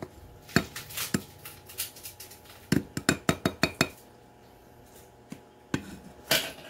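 Sharp clinks and taps of glass and ice as frothed almond milk is poured from a frother jug over frozen tea ice cubes in a glass, with a quick run of about eight taps around three seconds in.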